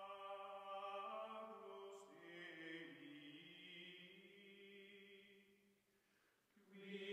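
Faint background music of chant-like choral voices on long held notes, fading out about six seconds in and starting again just before the end.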